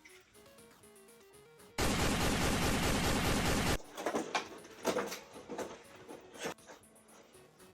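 A loud two-second burst of rapid machine-gun fire, a sound effect laid over quiet background music, followed by several sharp clicks and knocks.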